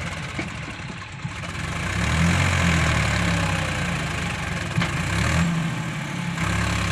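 Sonalika DI tractor's diesel engine running while hitched to a loaded soil trolley; its note grows louder about two seconds in, drops briefly near the end, then picks up again.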